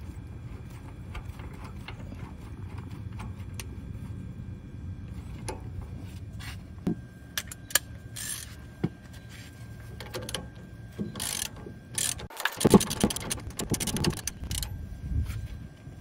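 Socket ratchet clicking as a bolt on a steering box is worked in and tightened, with scattered tool clicks and knocks, then a fast run of ratchet clicks near the end.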